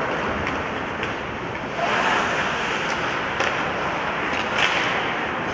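Ice hockey play on the rink: skates scraping across the ice in a steady noise, with several sharp clacks of sticks striking the puck.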